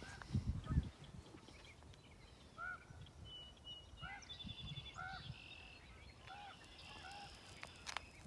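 A bird, most likely a goose, gives short honking calls about every second, with fainter chirps from other birds. A few low thumps come near the start and one sharp click near the end.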